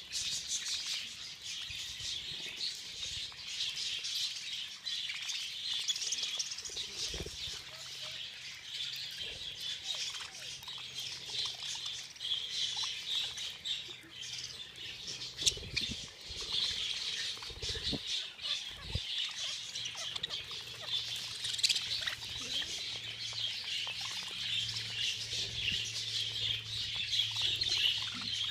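A flock of budgerigars chattering and chirping continuously as a dense warbling mass, with a few low thumps in the middle.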